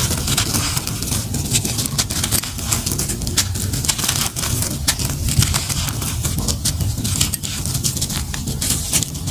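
Dusty charcoal lump crumbled by hand: dense, gritty crackling as small pieces and powder break off and fall, over a steady low rumble.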